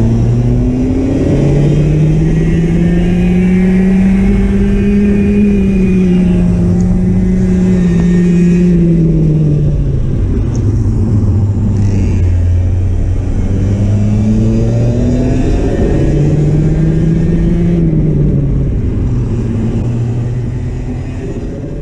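Racing kart engine heard onboard, revving up and down with speed through the corners: the pitch climbs, sinks to a low about halfway through, then climbs again and fades out at the very end.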